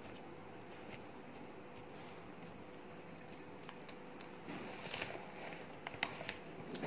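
Quiet kitchen handling sounds: a few faint clicks and light taps as spice powders and flour are tipped into a steel bowl of boiled potatoes, a little busier in the second half.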